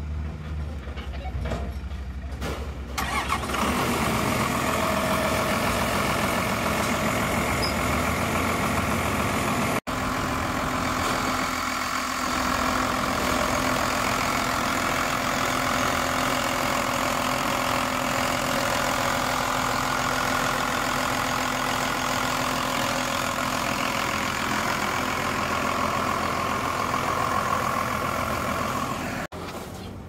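Diesel power unit of an Al-Jon 580 car logger starting up and running. It is low for the first few seconds, then much louder and steady from about three seconds in.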